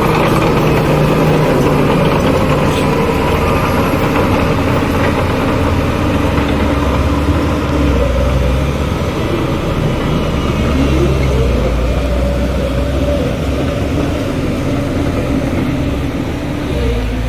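Heavy diesel engines of earthmoving machines and dump trucks running steadily, with one engine revving up about ten seconds in.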